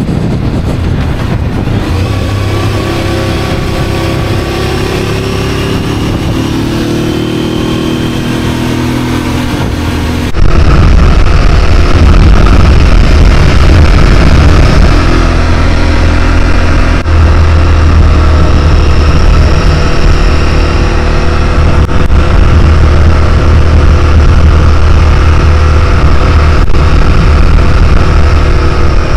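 Motorcycle being ridden at road speed: engine note with wind and road noise, its pitch rising and falling in the first part. About ten seconds in the sound suddenly gets louder, with a heavy low rumble that holds steady from then on.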